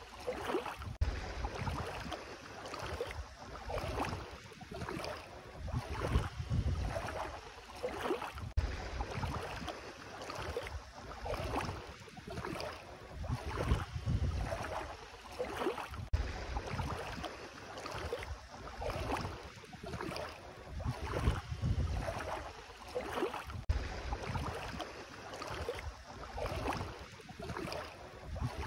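Bare feet wading through ankle-deep seawater: a swish and splash with each step, at an even walking pace of about one step a second. Low wind rumble on the microphone runs under it.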